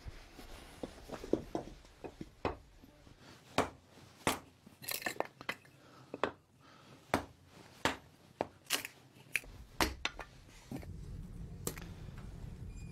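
Hatchet chopping kindling on a wooden block: a dozen or so sharp, irregular knocks as the wood is split for lighting a stove. A steady low noise sets in near the end.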